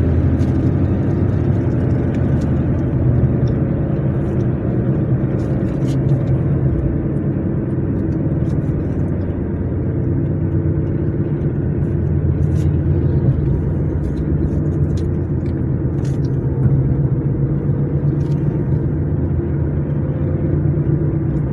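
Car driving on a rough rural road: steady low engine and tyre noise, with short sharp ticks now and then.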